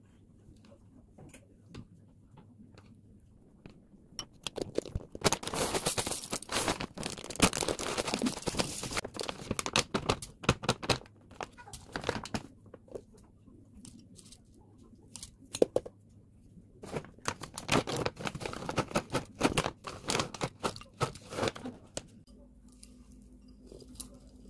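Plastic food packaging crinkling and tearing in two long spells, with many sharp clicks and crackles.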